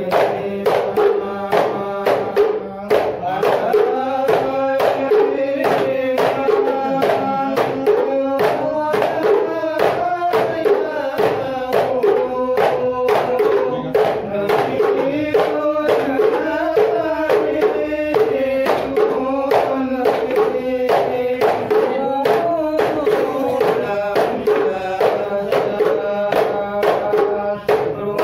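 Hadrah Ishari music: voices singing sholawat together over a steady, driving beat of hand-struck frame drums.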